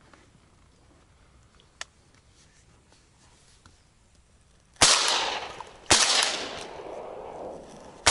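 Impala Plus semi-automatic shotgun fired twice in quick succession at ducks, about five seconds in and a second apart, each shot trailing off in a long echo, with a third shot starting right at the end. A single faint click comes before, about two seconds in.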